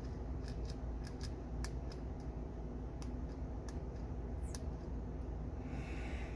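Light, irregularly spaced metallic clicks and ticks from the loose internal parts of a disassembled click-type torque wrench being handled, with a brief scrape near the end, over a steady low hum.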